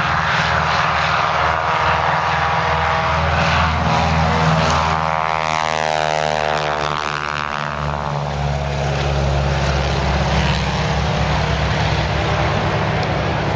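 Two Boeing Stearman biplanes' radial engines at full takeoff power, propellers running loud and steady. The engine pitch falls between about five and eight seconds in as the pair passes by on the takeoff run.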